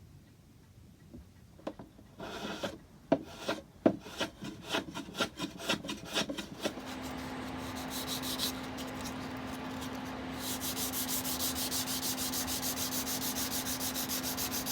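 Wood being worked by hand: a run of irregular rasping or filing strokes. About halfway a steady hum starts under continuous sanding, which pulses evenly at about four strokes a second in the last few seconds.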